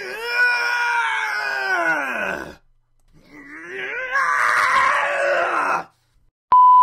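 A voice actor letting out two long cartoon-style screams, the first arching up and then down in pitch, the second rougher and rising. A short steady electronic beep sounds near the end.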